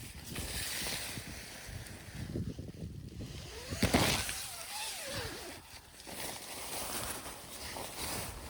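Wind gusting over the microphone with rustling handling noise, and a loud brief rustle with a short wavering squeak about four seconds in.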